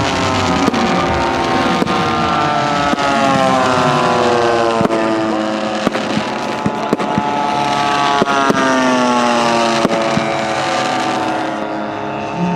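Propeller engines of radio-controlled scale WWII warbird models flying past overhead, more than one at a time, their pitch rising and falling as they pass. Sharp bangs of pyrotechnic charges go off at intervals throughout.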